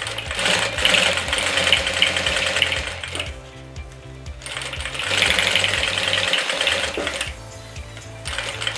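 Industrial flatbed sewing machine stitching a zipper onto clear plastic. It runs in three spurts with short stops between as the work is guided, over quiet background music.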